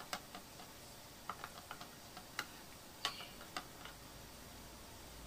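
Wooden rolling pin rolling out folded chapati dough on a wooden board, making faint, irregular clicks and light knocks.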